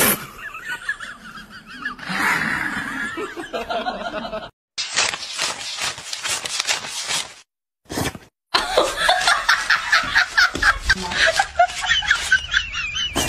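A person laughing in quick repeated bursts, with rapid papery flicking between, as of banknotes being counted by hand.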